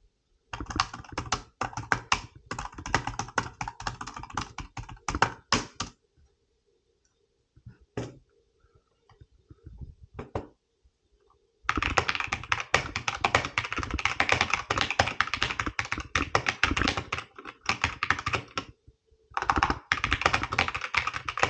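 Fast typing on computer keyboards, including a K68 mechanical keyboard, as a comparison of their key sounds. A burst of about five seconds comes first, then a few lone keystrokes, then a longer, louder run of clatter starting about halfway through with a short break near the end.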